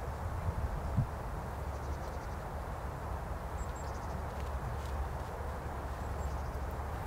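Steady outdoor background noise in a snowy field, a low even rumble and hiss, with a soft thump about a second in and a few faint, very high, short chirps.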